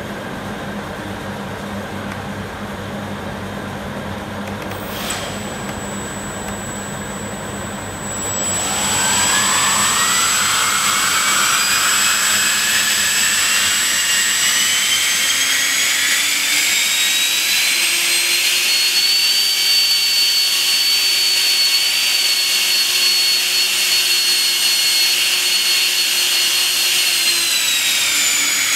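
ChangeSun 64mm 12-blade electric ducted fan with a 3200kv brushless motor, in its stock plastic duct, spooling up. After a faint hum and a click about five seconds in, it rises at about eight seconds into a climbing jet-like whine that keeps rising for about ten seconds. It then holds at high speed and eases off slightly near the end.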